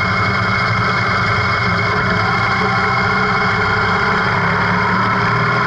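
Motorcycle engine running steadily at a constant pitch while riding.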